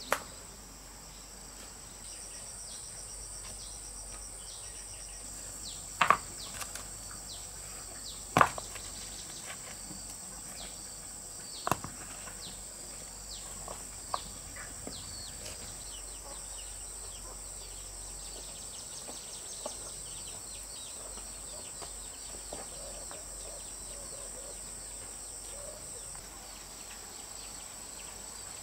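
Steady high-pitched insect chorus, with a few sharp knocks: the loudest about six and eight seconds in, another near twelve seconds.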